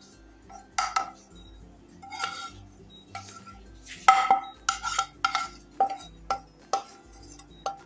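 Kitchen utensil scraping and knocking against a cooking pan while roasted ground coconut is scooped out, giving repeated short, ringing clinks at an uneven pace.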